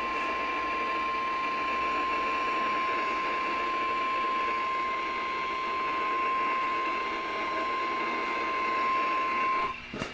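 NOAA Weather Radio warning alarm tone: a single steady high tone of about 1050 Hz held for nearly ten seconds over radio hiss, cutting off abruptly near the end with a click. It signals that a weather warning announcement follows.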